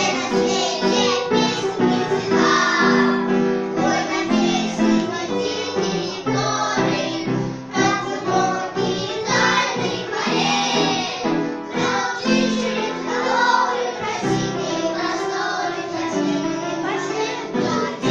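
A child's voice singing a song over instrumental accompaniment.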